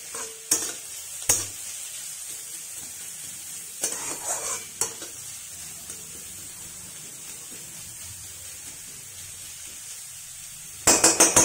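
Onions frying in ghee in a kadai with a steady sizzle, and a metal spatula clicking against the pan a few times. Near the end the onions are stirred hard, a quick run of rapid knocking and scraping against the kadai.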